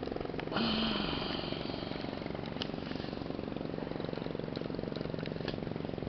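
Boat engine running steadily close by, with a rapid even firing pulse. It grows louder about half a second in, then settles back.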